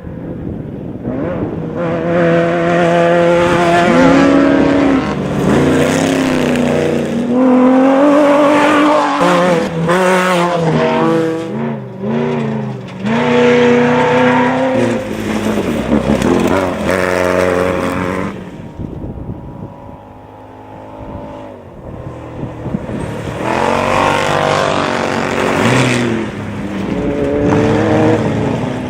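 Off-road race vehicles' engines revving hard as several pass in turn, the pitch climbing and dropping again and again, with a brief lull about two-thirds of the way through.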